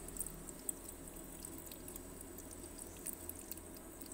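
Digital countertop ice maker running in its freezing cycle, ice forming on the cube grid: a steady low hum from the machine, with faint scattered small ticks.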